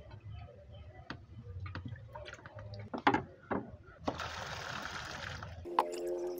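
Water being scooped and poured out of a fish tank: scattered splashes and knocks, then a rush of pouring water about four seconds in. A low steady hum runs underneath and cuts off near the end.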